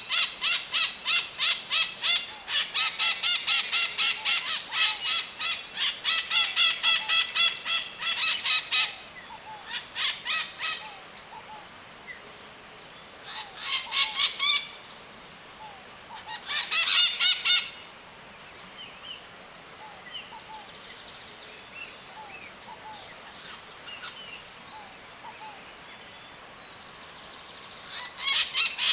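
White-eyed parakeets screeching, loud calls rapidly repeated in a long dense bout over the first nine seconds, then in short bouts about halfway through and again near the end. Between bouts a faint steady high whine and scattered soft chirps continue.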